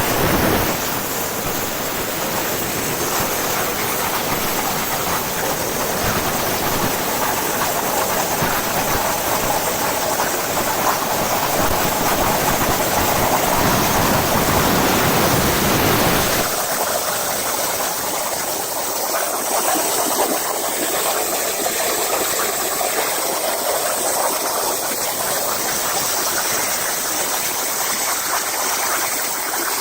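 Hypertherm Powermax 85 plasma torch cutting 3/4" mild steel plate: a loud, steady hissing roar. About 16 seconds in, the deep part of the sound drops away suddenly and a thinner, higher hiss carries on.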